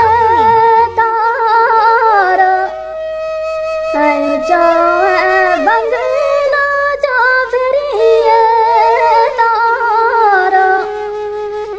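Music: a Gojri folk song (gojri geet) sung by a high voice, with long held, wavering notes.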